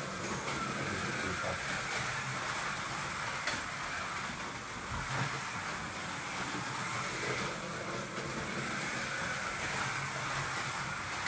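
Scalextric slot cars running laps: a steady whirr of their small electric motors and the rattle of the cars on the plastic track, with a whine that rises and falls as they speed up and slow down.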